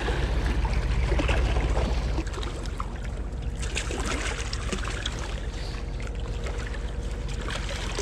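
A hooked blue catfish splashing in the shallows against the rocks as it is reeled in and netted, with water sloshing. A steady low rumble runs underneath, heaviest in the first two seconds.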